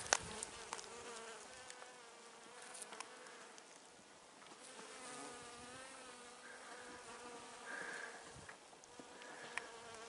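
Pollinating insects, honeybees among them, buzzing around plum blossoms: a faint, steady hum that wavers slightly in pitch.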